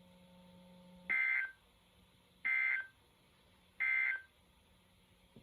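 Emergency Alert System end-of-message code: three short, identical bursts of two-tone digital data screech, about 1.3 seconds apart, signalling that the alert is over.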